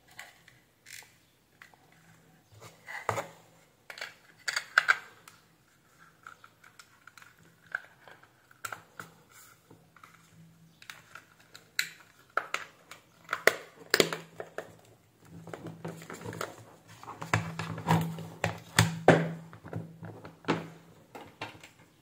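Hands handling and assembling a USB-C laptop charger: scattered plastic clicks, taps and rustling as the repaired USB-C connector and cable are fitted into the charger's case. A faint low steady hum sits underneath.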